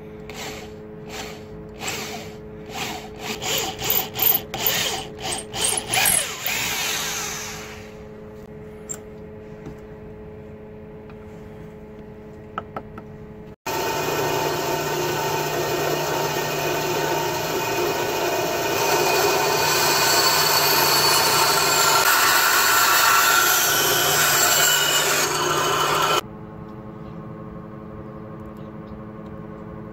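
Electric drill in a drill stand boring through a wooden handle scale on a steel knife tang, in a string of short trigger bursts for about six seconds, then spinning down. Later a power tool runs steadily for about twelve seconds and cuts off suddenly.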